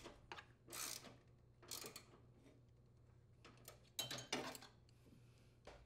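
Faint metallic clicking from a socket ratchet tightening the mounting bolts on a riding mower's steering shaft support, in a few short bursts.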